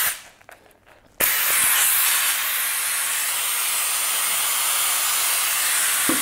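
Festo compressed-air vacuum generator, a venturi ejector, hissing. After about a second of near quiet, its loud, steady air hiss comes on and holds; it is very, very loud, about 90 dBA at the source.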